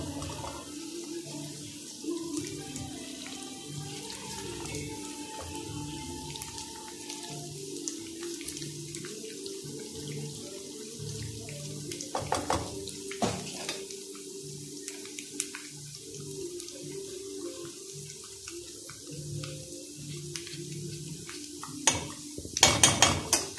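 Scrambled eggs sizzling in hot oil in a nonstick frying pan as they finish setting, a steady hiss. A spatula knocks the pan a couple of times about halfway through and scrapes and clatters against it near the end.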